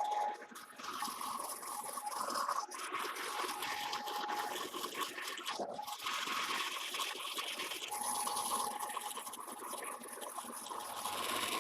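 Metal lathe turning a weld-repaired trunnion wheel while the cutting insert takes the first pass through the hard weld, a steady scraping hiss of the cut with a faint whine that comes and goes.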